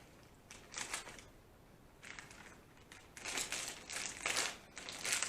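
Plastic chip bag of Slim Jim Fire Fries crinkling in bursts as it is gripped and pulled at to tear it open, the bag not yet giving way.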